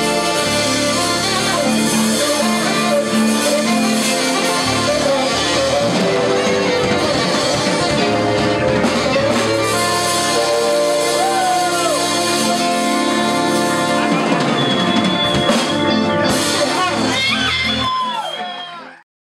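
Live band with saxophone, trombone, electric guitars and drums playing together, fading out near the end.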